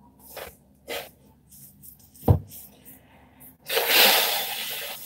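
A man drying his wet hair and face with a towel: quiet rubbing and handling noises, a single knock about two seconds in, then a loud rushing noise near the end that lasts about a second and fades.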